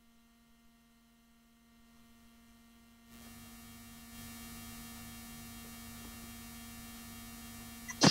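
Near silence, then about three seconds in a steady electrical mains hum with a low pulsing throb comes up in the video-call audio feed. This is line noise from an open connection. A sudden loud burst of noise hits right at the very end.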